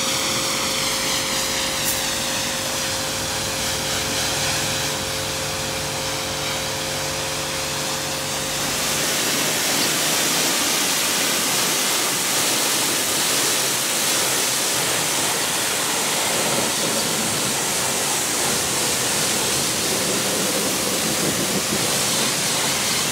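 Electric high-pressure washer rinsing degreaser off a car, its motor and pump humming steadily under the hiss of the jet. About nine seconds in the hum drops away, leaving the loud hiss of the spray hitting the paint.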